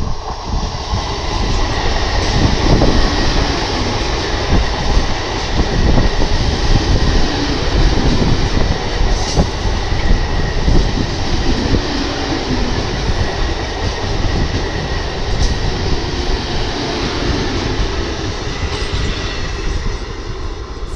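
Medha three-phase EMU local train passing close by at speed: a loud, steady rush of wheels on rail, with a thin high whine running through it.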